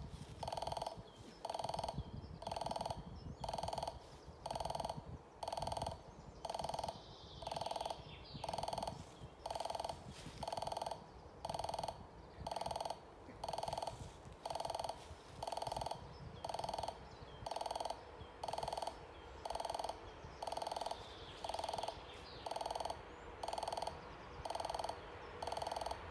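KBB-6 level-crossing warning bell sounding a repeated tone about once a second: the crossing's signal that a train is approaching and the barriers are down.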